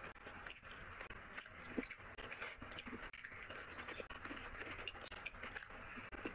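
Close-miked eating by hand: fingers mixing rice and curry on a plate, then a handful taken into the mouth and chewed, with many small wet clicks and smacks.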